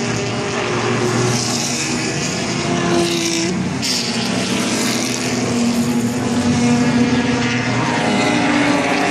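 A pack of race cars passing at speed, their engines running loudly together, with engine notes rising and falling as they go through the gears; one note breaks off about three and a half seconds in.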